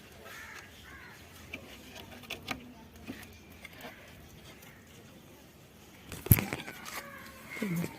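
Lovebirds chirping and squawking faintly in short, scattered calls, with a single sharp knock about six seconds in.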